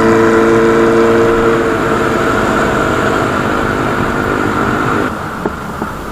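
Motorcycle being ridden at a steady speed, its engine holding one even note under loud wind and road rush. The engine note fades about two seconds in, and the rush drops off sharply about five seconds in as the bike slows.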